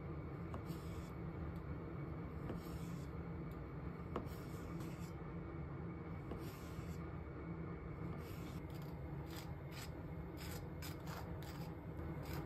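Kitchen knife cutting through an avocado on a wooden cutting board: short, soft scrapes, coming more often in the second half, ending with butter being scraped across bread. A steady low hum runs underneath.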